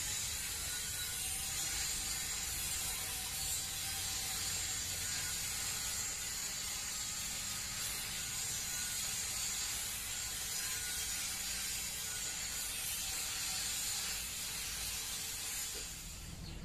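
Steady, dense high-pitched insect trilling, unchanging throughout, over a low rumble of background noise.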